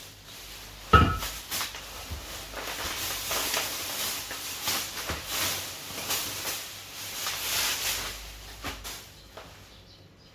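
Handling noises from unpacking: a sharp knock about a second in, then a run of irregular rustling and scraping that dies away near the end.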